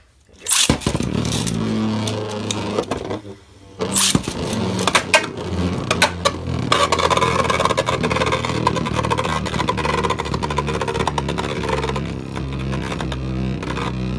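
Two Beyblade Burst tops, Dynamite Belial and a customized Belial, launched into a clear plastic stadium with a sudden rush about a second in. They spin with a steady mechanical whir, with a few sharp clacks of collisions a few seconds later.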